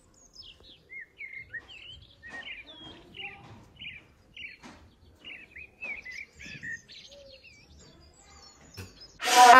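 Small birds chirping and twittering, with many short quick calls. A sudden loud cry breaks in near the end.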